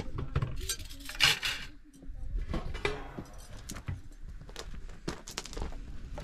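Kitchenware clinking and knocking: a series of short, light clicks and taps, with a louder scraping rush about a second in.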